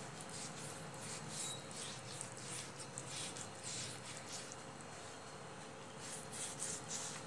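A hand rubbing and smoothing the wet surface of a clay stove: a run of soft, irregular swishing and scraping strokes, several a second.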